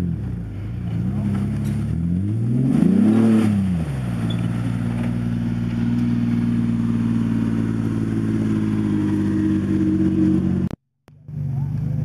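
2000 Ford Explorer's engine working up a dirt hill: it revs up and back down once about three seconds in, then runs at a steady speed. The sound breaks off suddenly near the end and picks up again lower in pitch.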